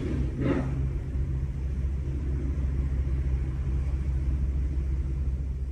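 A steady low rumbling drone with several deep hum tones. About half a second in there is a brief louder burst with a higher edge.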